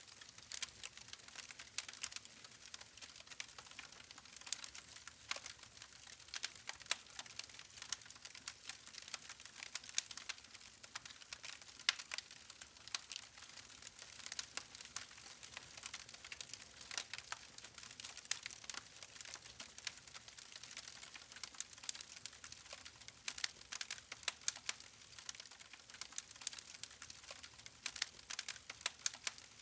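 Wood fire crackling: many small irregular pops and snaps from the burning logs over a faint hiss, with a few louder pops now and then.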